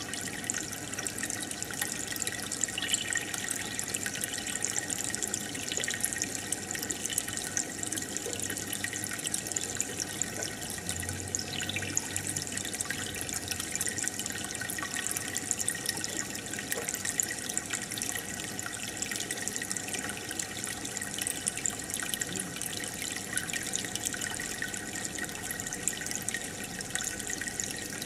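Aquarium water bubbling and trickling steadily, with fine crackling bubble pops, from the tank's aeration or filter.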